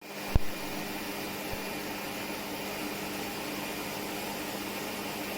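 Pet grooming vacuum starting up and running with a steady whir and a low hum, with a single knock about half a second in.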